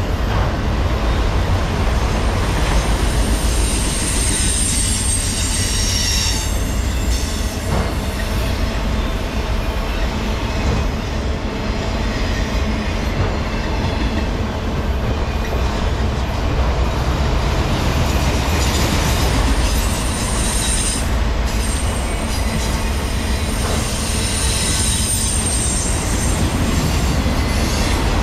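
A long freight train of autorack cars rolling past: a steady heavy rumble of steel wheels on rail, with thin high-pitched wheel squeals coming and going.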